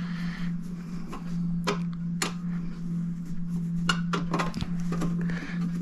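Screwdriver working a stubborn screw out of a crystal regulator clock: scattered small metal clicks and scrapes, over a steady low hum.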